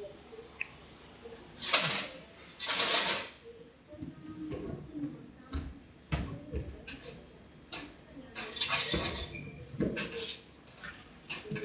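Drinks being loaded into a vending machine: irregular clinks and knocks, with a few longer rattling bursts as the drinks slide and clatter into place.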